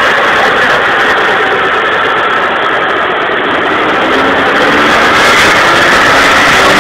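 Nissan Sunny GTi's 2.0-litre four-cylinder engine running on a chassis dynamometer over a loud steady rush; after a brief lull about halfway, its pitch rises steadily as the revs climb under load.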